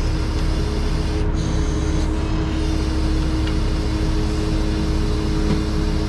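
Heavy-duty wrecker's diesel engine running steadily, with a deep rumble and a constant droning hum.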